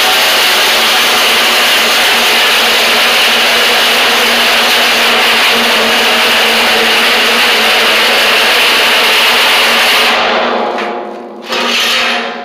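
Cordless reciprocating saw cutting through a steel drum: a loud, steady buzzing of the motor with the blade rasping on the sheet metal. It stops about ten seconds in, with one short burst near the end.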